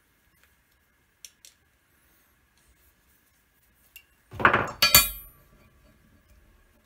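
Small metal concho die parts and pins being handled: a few light clicks, then about four seconds in a loud metallic clatter and a ringing clink as metal parts knock against a steel plate.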